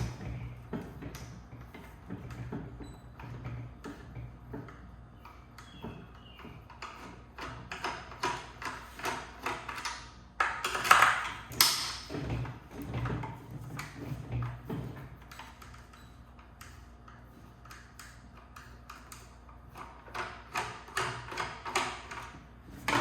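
Long thin hand screwdriver working screws deep inside a wooden subwoofer enclosure: scattered small metallic clicks and taps, with a louder cluster about eleven seconds in and another near the end, over a faint steady low hum.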